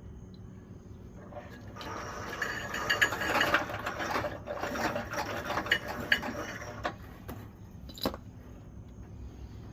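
Harbor Freight 9000 lb winch drum turning as new cable is wound onto it, an irregular mechanical rattling with clicks that builds up about a second and a half in and dies away about seven seconds in. A single sharp click follows about a second later.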